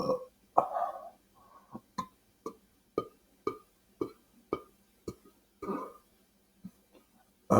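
Mouth smacking while chewing food: short, sharp clicks at about two a second, with a brief vocal sound about half a second in and another near the end.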